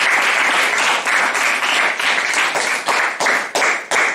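An audience applauding: dense clapping that thins into separate, scattered claps over the last couple of seconds.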